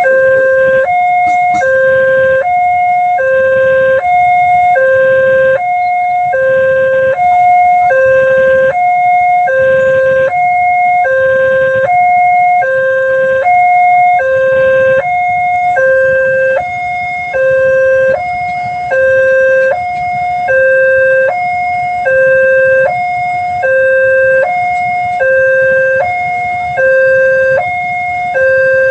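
Railway level-crossing warning alarm sounding a loud two-tone chime, a lower and a higher tone alternating in a steady cycle about every second and a half, the signal that a train is approaching and the crossing is closing.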